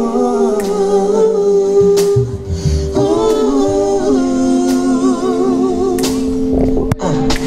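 Live soul band: a female lead singer holds long notes into the microphone, wavering in places, over a bass guitar line and a few drum hits.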